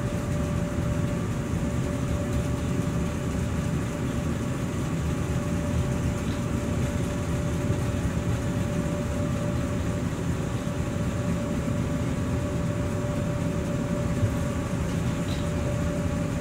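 Steady low rumbling background noise with a constant mid-pitched hum running through it.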